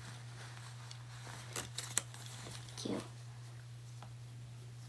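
Quiet handling of a pair of athletic pants and their tag: a few faint clicks and rustles about a second and a half to two seconds in, over a steady low hum.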